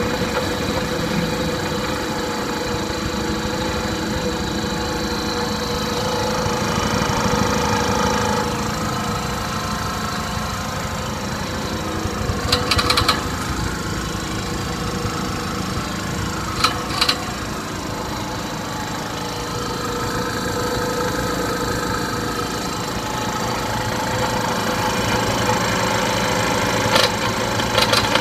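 Kanematsu air compressor running steadily with a fast, even pulsing hum. Several brief, sharp high-pitched sounds stand out over it: twice in the middle and twice near the end.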